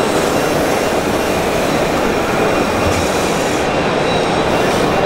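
Steady, loud, even din of a busy exhibition hall, with no distinct events standing out.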